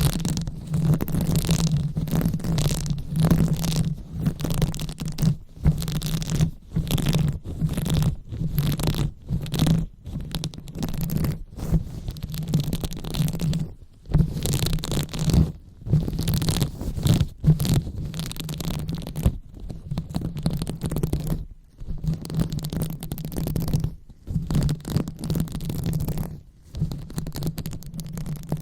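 Close-up rubbing and scratching right on the microphone for an ASMR 'brain massage'. The strokes run in quick succession with brief pauses between them, over a deep rumble from the handling.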